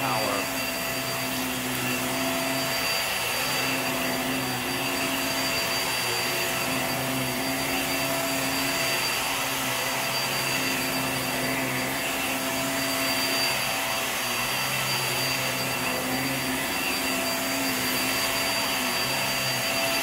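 Hoover React Powered Reach upright vacuum cleaner running steadily while pushed over carpet: a constant motor whine with several held tones over the rushing hiss of suction air.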